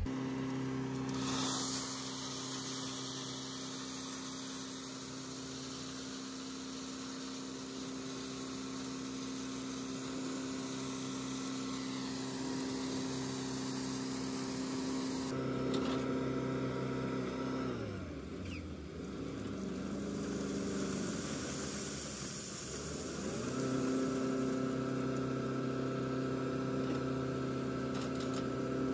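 Tipper truck's diesel engine running at raised, steady revs to drive the hydraulic hoist as the body tips and the load of crushed stone slides out. About two-thirds of the way through, the revs drop and then come back up to the same steady note.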